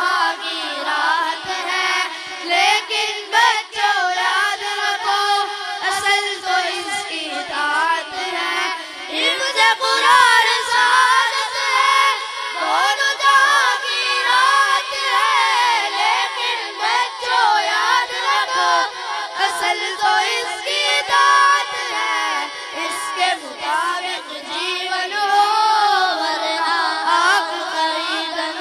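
Three boys singing a devotional song together into handheld microphones.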